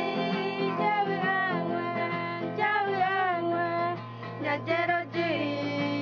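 Music: a voice singing a wavering melody over acoustic guitar accompaniment.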